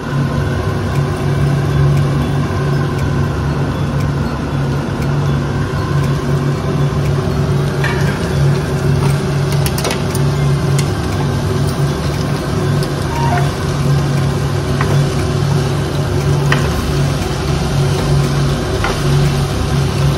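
A steady, low machine hum, unchanging throughout, with a few faint light clicks over it.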